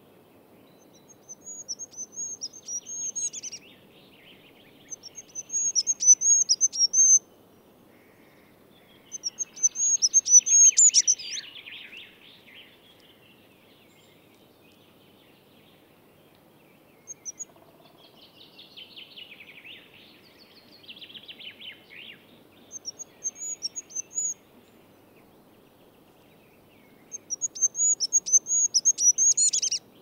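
Songbird singing short, high, rapid trilled phrases of one to two seconds, repeated every few seconds, with quieter lower twittering in between.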